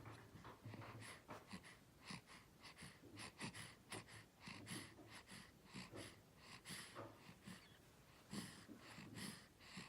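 Faint snoring of someone asleep: soft, snuffly breaths with short crackly sounds coming several times a second, irregularly.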